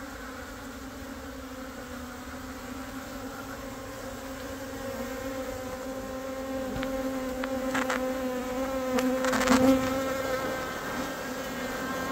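A swarm of Korean native honeybees (Apis cerana) clustered on a roof beam, buzzing with a steady, even hum of many wings. The hum swells a little after the middle, with a few short ticks between about seven and ten seconds in.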